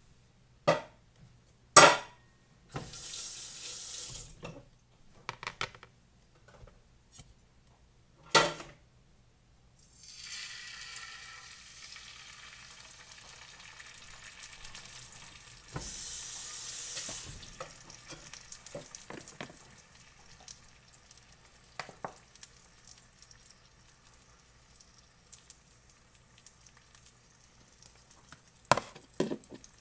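Eggs going into hot bacon grease in an electric skillet: a few sharp knocks, loud bursts of sizzling as the eggs hit the fat, then a steady frying sizzle. A short clatter of clicks near the end, from a pepper grinder over the pan.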